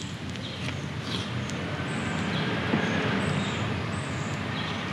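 Small birds chirping in short repeated calls over a broad rush of background noise that swells and grows louder toward the middle, with a few crackles from a wood fire in a fire pit.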